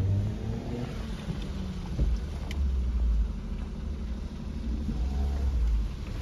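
Car engine labouring at low speed up a steep road, a low rumble that swells and eases twice; the car is struggling to pull on the climb.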